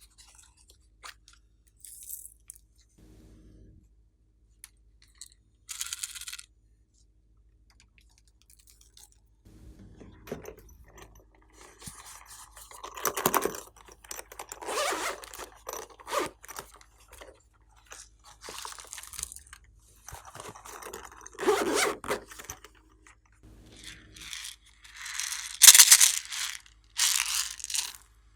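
Slime being mixed and squished, with irregular crackling and scraping bursts that grow louder and busier in the second half.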